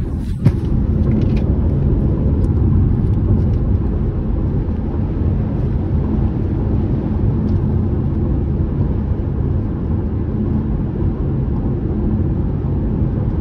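Steady low road and engine rumble heard from inside a car cruising on the highway. A single short knock about half a second in, as the phone is handled.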